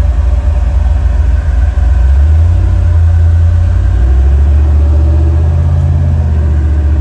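LS V8 engine of a rock-crawling race Jeep, heard from inside the cab, running low and loud as it crawls over slickrock. It grows louder about two seconds in, and its pitch rises a little later as the throttle comes on.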